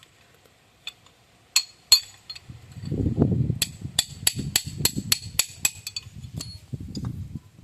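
Irregular sharp metal taps and clinks from hand tools working on tractor half-shaft parts, with a low rumble underneath from about three seconds in.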